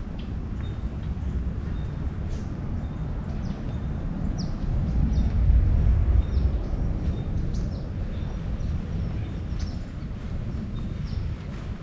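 Footsteps crunching through dry fallen leaves, under a steady low rumble that swells about halfway through, with short high bird chirps scattered throughout.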